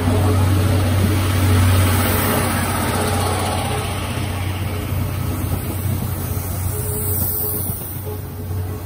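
Brake van and 14-series passenger coaches of a steam-hauled train rolling past close by: a steady rumble of wheels on the rails under a strong low hum, easing slightly toward the end.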